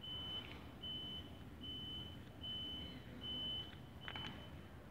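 A high-pitched beep repeating evenly, about one short beep every 0.8 seconds, five of them in all, stopping about three and a half seconds in.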